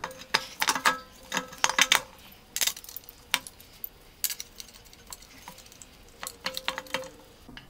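Irregular metal clinks and knocks as a water pump is handled and fitted against the front of an LS engine block, with a brief metallic ring twice.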